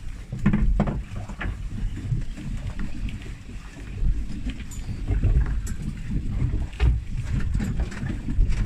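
Uneven, gusting low rumble of wind buffeting the microphone with sea noise aboard a small boat, broken by a few faint clicks.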